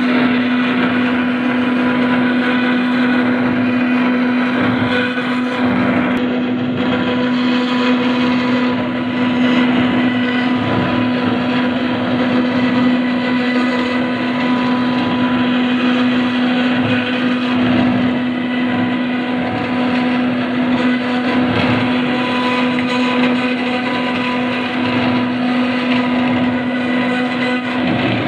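CNC router spindle running steadily at a fixed pitch while its bit cuts into granite, with a gritty grinding noise from the stone.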